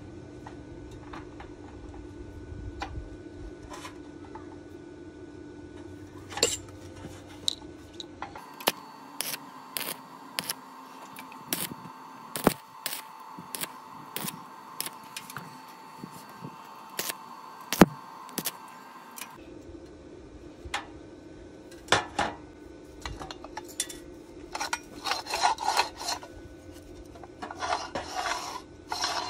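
Stick welding on square steel tubing: for about ten seconds in the middle, a steady arc crackle with sharp pops. Before and after it come light clicks, then a run of metal clinks and knocks as the steel tube pieces are handled.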